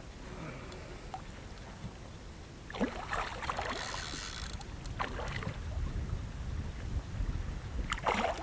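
A hooked fish splashing at the water's surface beside an inflatable boat as it is played toward the landing net: quiet at first, then a few splashes, the first about three seconds in and more near the end.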